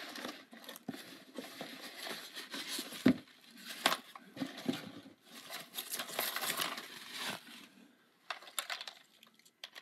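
White packing paper and wrapping rustling and crinkling as hands pull them out of a cardboard box, with a few sharp knocks about three and four seconds in. It goes quieter near the end, leaving only scattered small clicks.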